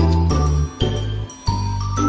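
Upbeat background music with a steady beat, a deep bass line and bright chiming notes on top.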